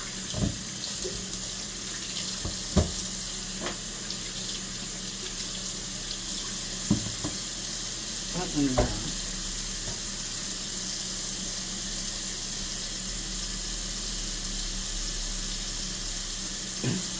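Kitchen tap running steadily into the sink while potatoes and asparagus are rinsed under it, with a few short knocks against the sink.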